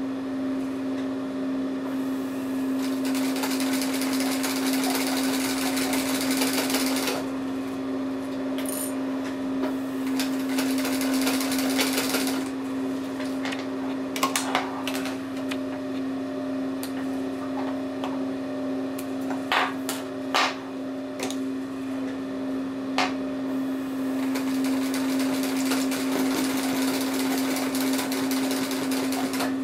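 Singer semi-industrial sewing machine stitching a cam buckle onto heavy webbing, the needle knocking rapidly through the thick strap in several runs with short pauses. A steady motor hum lies underneath, and a few sharp clicks fall in the pauses.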